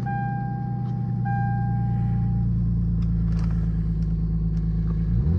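Lexus GS300's 2JZ inline-six idling steadily just after starting, with its newly replaced cylinder 6 coil pack. It is running fine, with the misfire apparently cured. The car's warning chime sounds in two long tones over the first couple of seconds, and the engine note dips briefly near the end.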